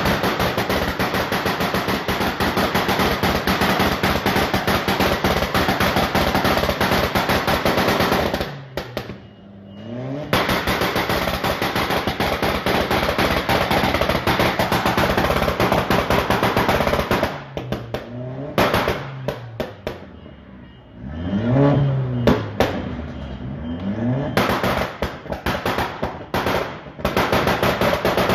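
Car engine revved hard and held at high revs in long bursts, its exhaust firing a rapid, continuous crackle of bangs like machine-gun fire. The revs drop briefly between bursts, about 8 s in, around 17 to 21 s, where the engine note sweeps up and down, and again before a last burst near the end.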